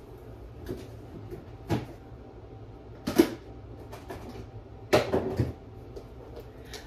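Kitchen cupboard or fridge doors and the things inside being handled: a few separate knocks and clatters, a louder one about three seconds in and a short cluster about five seconds in.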